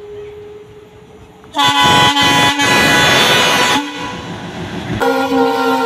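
Air horn of an approaching WDM3A diesel locomotive sounding: a faint steady tone at first, then a loud blast about one and a half seconds in that lasts about two seconds, and a second loud blast starting about five seconds in.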